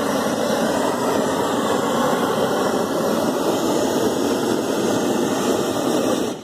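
Gas burner torch on a pole roaring steadily as it blows hot air into the mouth of a large fabric balloon to inflate it.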